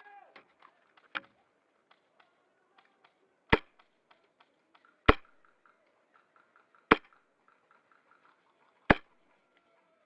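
Airsoft DMR firing four single shots, spaced about one and a half to two seconds apart, with fainter clicks and pops between them.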